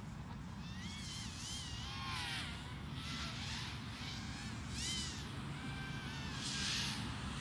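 FPV racing quadcopter's motors whining, the pitch rising and falling with the throttle, swelling as the drone sweeps past about three times. A steady low rumble runs underneath.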